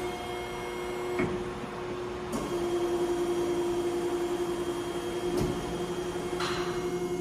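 Wysong hydraulic press brake running: the hydraulic pump gives a steady hum that grows stronger between about two and a half and five and a half seconds in, broken by four short clunks and clicks as the machine cycles.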